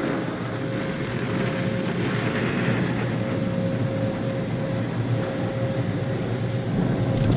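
Automatic car wash spraying water and foam onto the car, heard from inside the cabin as a steady rushing wash with a thin steady whine running through it.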